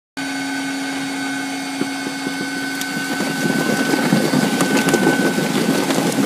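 Reference Cutter RC800 food-cutting machine running, with a steady low hum and a higher whine. About three seconds in, a louder rough, clicking noise joins as the boiled potatoes are cut.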